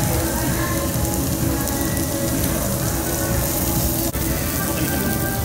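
Meat sizzling on a hot tabletop Korean barbecue grill: a steady, loud sizzling hiss, with faint music underneath.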